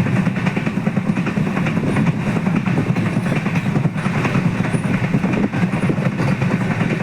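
Train running along the track: a steady rumble of the wheels on the rails, with a few faint knocks.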